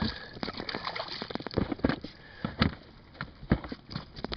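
A small hooked fish splashing at the surface beside a boat as it is reeled in and lifted aboard, heard as a run of irregular, sharp splashes and knocks.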